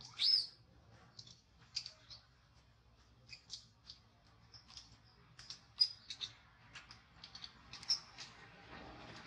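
Infant long-tailed macaque giving short, high squeaks scattered through, the loudest a falling squeak right at the start. Near the end there is soft rustling as the baby clambers.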